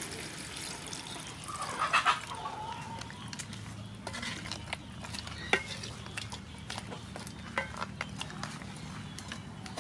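Coconut milk poured into an aluminium pot of river prawn curry, then a wooden ladle stirring the curry and knocking lightly against the pot now and then. A brief animal call about two seconds in is the loudest sound.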